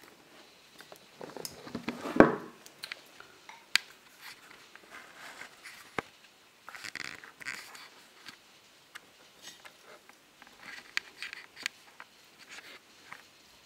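Scattered scrapes, rustles and light knocks from a savannah monitor lizard and a person's hand moving over dry bark-chip substrate in a terrarium, loudest in a burst of rustling about two seconds in.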